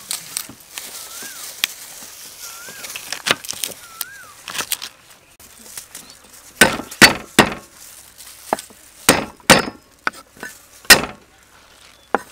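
Meat cleaver striking down on a thick wooden chopping block through garlic cloves: about seven sharp, heavy knocks in the second half, several in quick pairs. Before them only small clicks of garlic cloves being peeled by hand.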